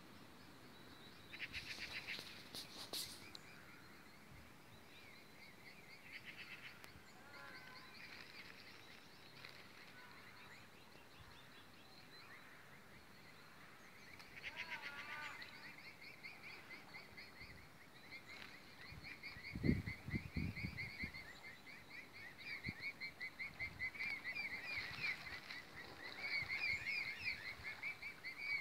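Outdoor animal chorus of rapid, repeated short calls, sparse at first and growing denser and louder in the second half, with a single low thump about two-thirds of the way in.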